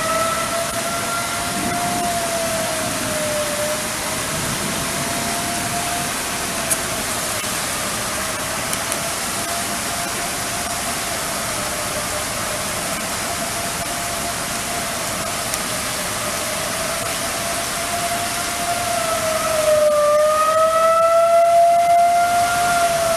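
Outdoor tornado warning siren (civil defense siren) sounding a steady wail for a tornado warning, its pitch wavering gently up and down. It grows louder near the end.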